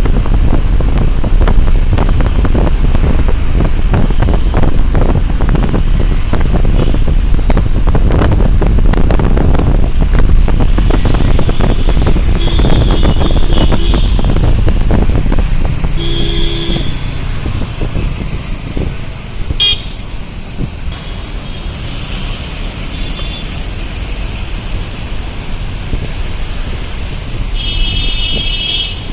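Road traffic with wind rumbling on the microphone, heavy for the first half and then easing to lighter road noise. Vehicle horns honk briefly several times, around the middle and again near the end.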